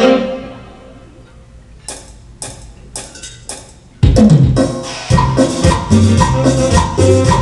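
A held pitched note fades away, then a few sharp woodblock-like clicks count in, and about four seconds in a loud band groove kicks in, with a repeating bass line and percussion from the keyboard's rhythm accompaniment.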